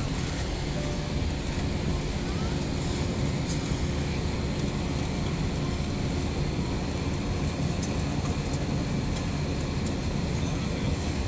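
Steady interior cabin noise of a jet airliner taxiing, its turbofan engines running at low taxi power with a low rumble underneath, heard from inside the cabin.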